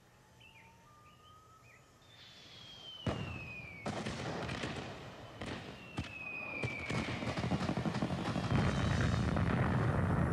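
Fireworks: a few faint chirps, then whistling shells gliding down in pitch, sharp bangs about three seconds in and again around six seconds, and dense crackling that builds into a loud low rumbling barrage near the end.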